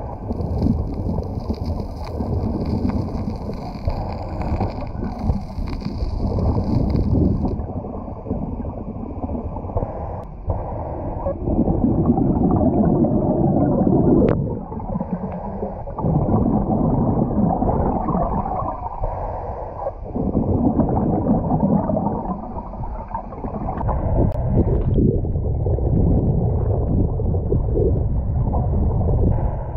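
Muffled underwater noise from a diver's surface-supplied full-face mask: exhaust bubbles gurgle out in surges every few seconds over a steady low rush of water.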